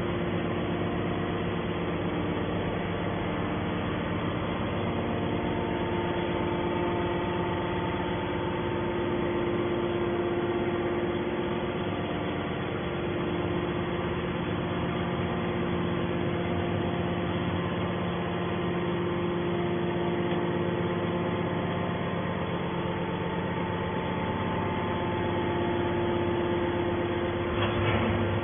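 Scrap metal baler's hydraulic power unit running steadily: a constant machine hum with several steady tones. There is a brief knock near the end.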